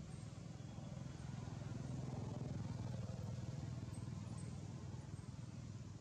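Faint low engine rumble of a motor vehicle passing, growing louder about two seconds in and fading again near the end.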